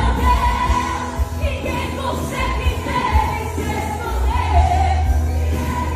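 Worship song: a sung melody over a steady low bass.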